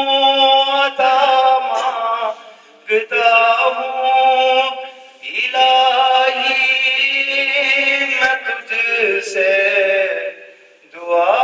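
A man singing an Islamic devotional song (hamd/naat) through a handheld microphone, in long, drawn-out phrases with short pauses for breath.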